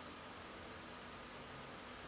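Faint steady hiss with a thin, faint hum: recording noise and room tone.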